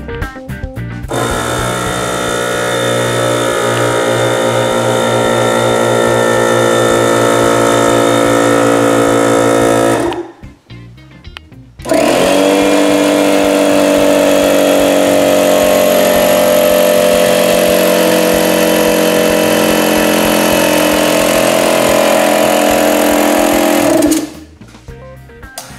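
A DeWalt portable air compressor running steadily, stopping about ten seconds in; after a short gap a Bostitch TrimAir 1.2-gallon oil-free compressor starts up, runs steadily and stops near the end.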